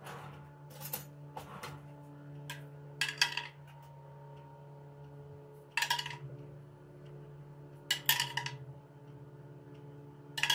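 A utensil clinking and scraping against a dish in about half a dozen short, sharp strikes at irregular intervals, each with a brief ring, as coriander-garlic sauce is served over roasted chicken. A steady low hum runs underneath.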